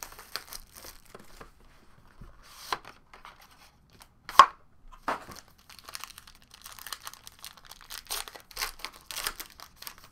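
Plastic wrapping on a sealed trading-card box and pack crinkling and tearing as it is opened by hand, with one sharp click about four seconds in and a busier run of crinkling in the last few seconds.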